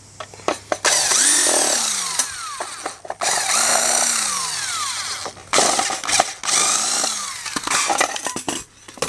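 Electric drill-driver with a long, thin screwdriver bit backing screws out of a plastic appliance base. The motor runs in three spells of a few seconds each, its pitch rising and falling within each spell, with short breaks and clicks between them.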